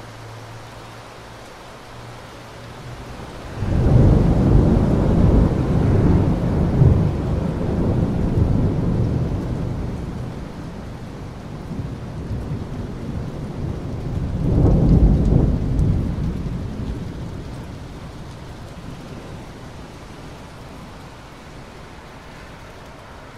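Steady rain with two rolls of thunder. A loud, deep rumble breaks in suddenly a few seconds in and dies away slowly; a second, shorter rumble comes a little past halfway.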